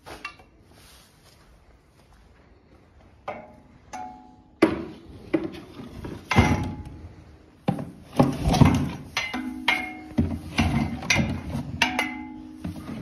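Tubular steel pen gate rattling and clanging, with plastic water buckets knocked and handled against it: a run of sharp knocks from about three seconds in, many with a short metallic ring.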